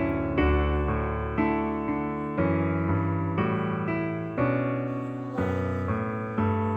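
Background music: soft piano or electric keyboard chords changing about once a second.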